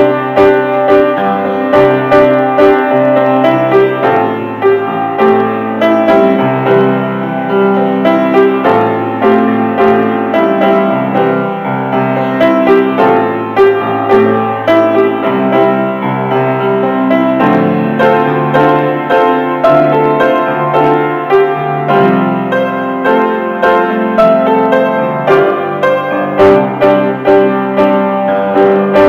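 Piano playing a piece of chords and melody, with notes struck in a steady flow.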